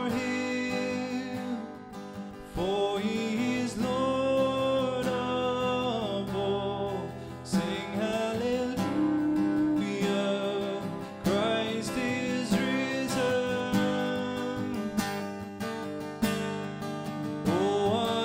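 A man singing a worship song, accompanying himself on acoustic guitar.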